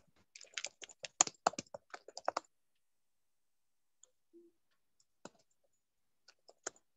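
Quick typing on a computer keyboard for about two and a half seconds, then, after a pause, a few scattered clicks.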